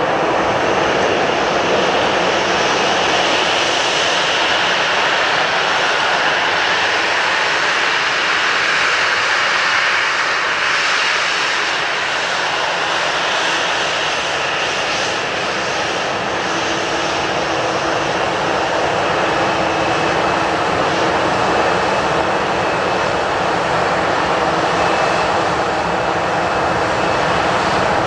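Jet engines of a Boeing 737-800 (CFM56-7B turbofans) running at low taxi power as the airliner rolls slowly past at close range: a steady whine over a rushing hiss.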